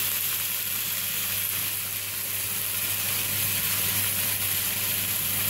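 Chopped onion, beetroot, carrot and capsicum sizzling steadily in oil in a frying pan, with chopped tomatoes just added.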